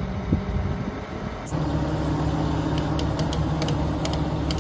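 Crane engine running steadily at idle. About a second and a half in, the hum becomes louder and steadier, and a few light clicks follow.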